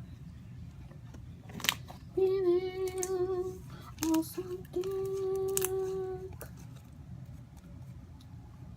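A girl singing or humming held notes without words: a slightly wavering note about two seconds in, a couple of short notes, then a long steady note. A sharp click comes just before the first note.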